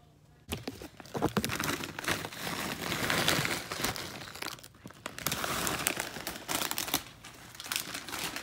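Snack-chip bag crinkling loudly as it is handled and the chips are shaken out, starting about half a second in, with a couple of brief breaks.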